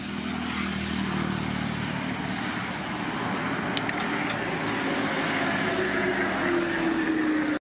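A running engine, with its pitch rising a little near the end and short hissing bursts in the first few seconds.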